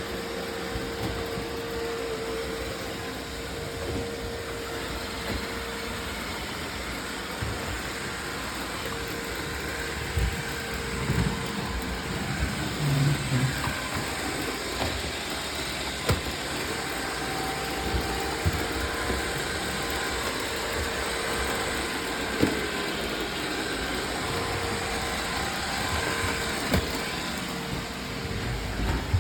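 Roomba robot vacuum cleaners running, a steady motor whine and brush noise with an occasional short knock.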